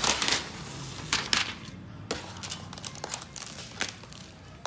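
Plastic protective wrapping crinkling on and off as it is pulled off a laptop, with the loudest rustle at the start and shorter ones about a second, two seconds and nearly four seconds in.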